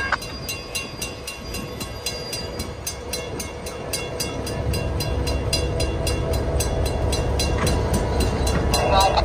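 An MBTA GP40MC diesel locomotive rolls slowly over a grade crossing, its engine rumble growing louder about halfway through as it comes closer. A crossing bell rings steadily and rapidly throughout.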